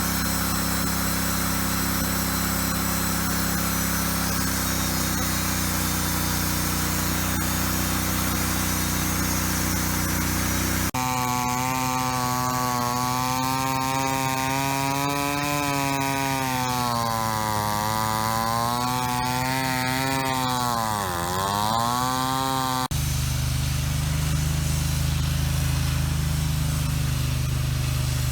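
A sawmill running: a steady engine hum, then a saw blade cutting through a log with a loud whine whose pitch sags and recovers as it takes the load, dipping sharply just after twenty seconds in, before the steady hum returns.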